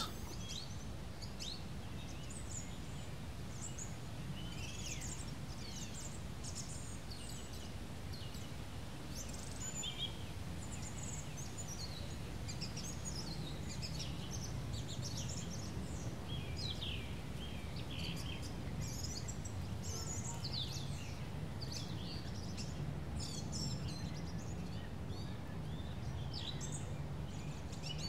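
Birds chirping on and off, short high chirps and quick falling notes, over a steady low background rumble of outdoor noise.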